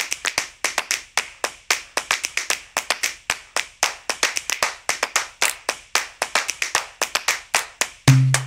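Rhythmic snaps and claps from a music track, a fast run of sharp clicks about five a second. Near the end, low pitched percussive notes come in under them.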